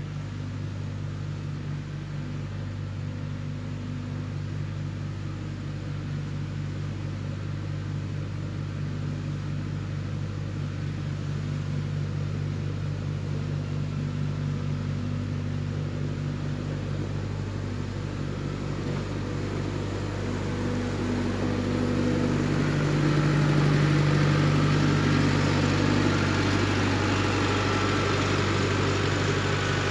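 Diesel engine of heavy construction equipment running steadily under load, getting louder about two-thirds of the way through.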